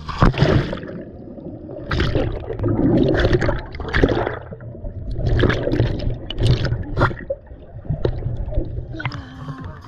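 Pool water heard through a submerged action camera: muffled sloshing and bubbling, with several surges of splashing as a child swims and stirs the water around it.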